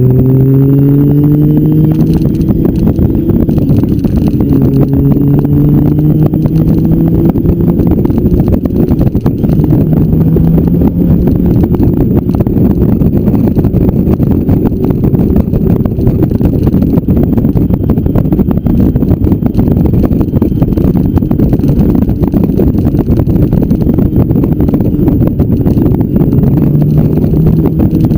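Motorcycle engine pulling along the road, its pitch climbing several times as it accelerates through the gears, under heavy wind rush on the bike-mounted microphone.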